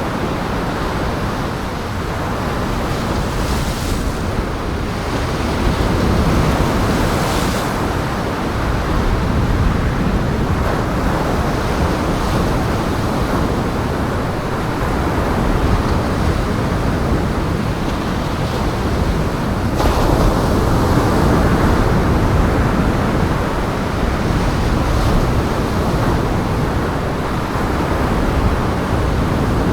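Strong wind and breaking lake waves, a dense, steady noise that swells and eases.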